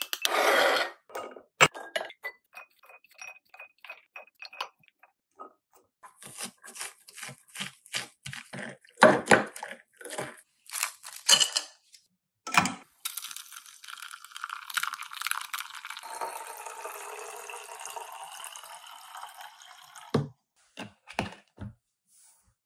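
A metal spoon repeatedly tapping the back of a halved pomegranate to knock the seeds into a glass dish, giving many sharp irregular taps. This is followed by clinks of ice cubes against glass, a steady rushing noise lasting several seconds, and a few knocks near the end.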